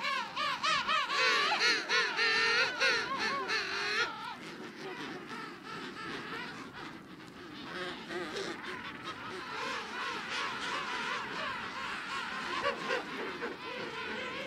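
King penguin colony calling: a loud, quavering, warbling call for about the first four seconds, then many overlapping calls from the crowd, somewhat quieter.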